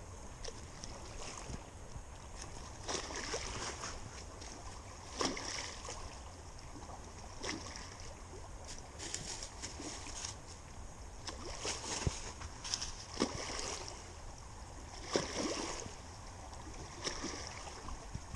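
Footsteps crunching and crackling through dry fallen leaves, an irregular run of rustling crunches every second or two over a steady low rumble.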